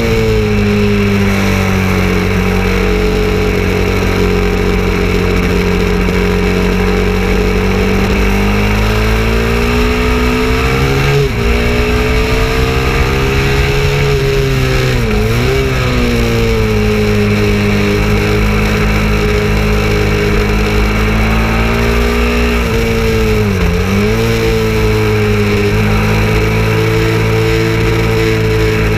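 KTM 690 Duke's single-cylinder engine pulling at high revs, with wind rushing past. The pitch climbs under acceleration and falls off into corners, and it dips sharply three times as gears change.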